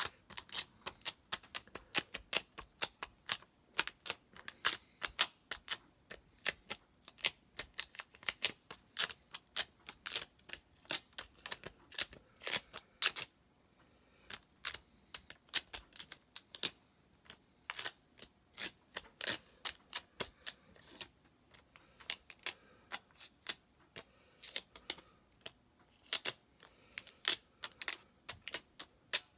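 Dust-removal sticker dabbed again and again onto an iPhone 12 Pro's glass screen and lifted off, making a run of sharp little clicks and ticks, about two or three a second.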